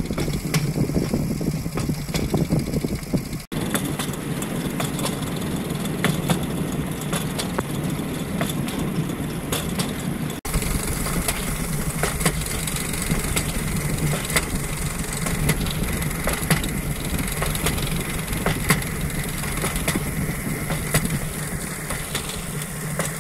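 Steady rumbling and rattling of travel along a railroad track, with frequent sharp clicks over a constant low hum. It breaks off abruptly twice, at about three and a half seconds and again about ten seconds in, then resumes.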